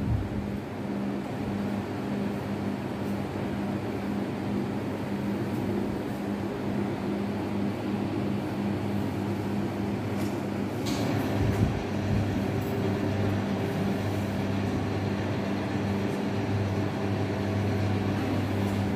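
Steady low hum over constant background noise, with one short click about eleven seconds in.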